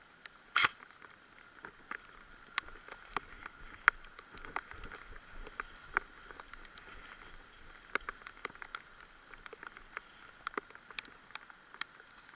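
Raindrops pattering irregularly close to the microphone, as scattered light ticks with a louder tap about half a second in.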